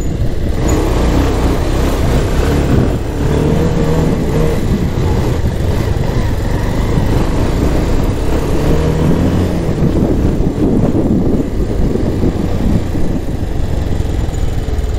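Motorcycle engine and road traffic running steadily, a dense low rumble with the engine pitch shifting briefly a couple of times.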